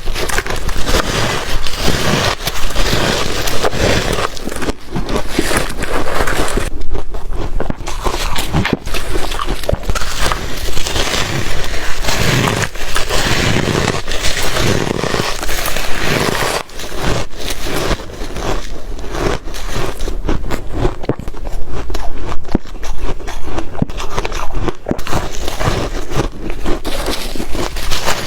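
Close-up crunching and chewing of soft freezer-frost ice in the mouth, a dense run of crackly bites with brief pauses between mouthfuls.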